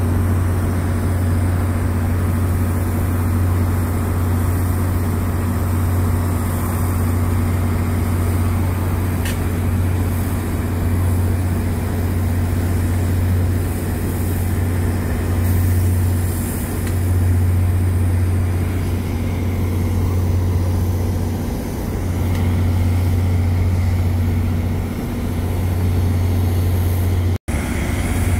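NJ Transit GP40PH-2 diesel locomotives standing and running at idle: their EMD V16 diesel engines make a steady, loud low drone. The audio drops out briefly near the end.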